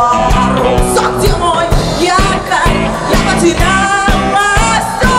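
Live rock band playing: a woman singing over acoustic guitar, electric bass and a drum kit, with a steady beat.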